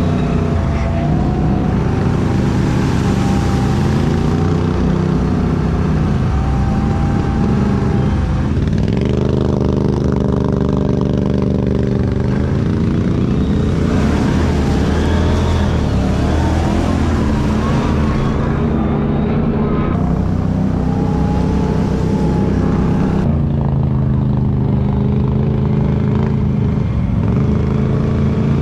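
ATV engine running under way, its pitch falling and climbing again several times as the throttle is eased off and opened up.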